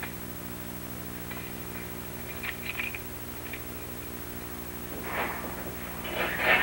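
Steady low electrical hum from the old recording's soundtrack, with a few faint clicks. Near the end a louder, noisy sound rises over it.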